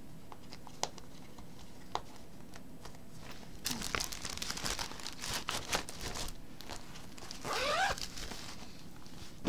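Crinkling and rustling as a clear plastic sheet protector and a fabric project bag are handled, with a couple of light clicks in the first two seconds and longer stretches of rustling from about four seconds in.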